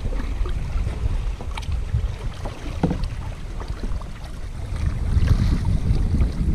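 Wind noise on the microphone over a kayak being paddled, with small splashes and drips from the double-bladed paddle now and then.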